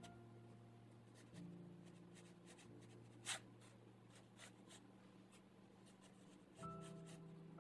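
Faint brush strokes on textured watercolour paper: a series of short, soft scratches, one louder stroke about three seconds in, over quiet held chords of background music.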